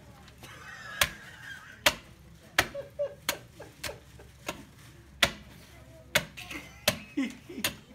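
A butcher's cleaver chopping through the breastbone and ribs of a pig carcass: about a dozen sharp chopping strikes at irregular intervals.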